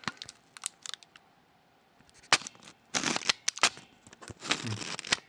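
Sharp little clicks and taps of small metal lock parts, the pins and springs of a Miwa Kaba Star–type dimple-lock cylinder, being taken out and set down during disassembly, with a short scrape of handling about three seconds in.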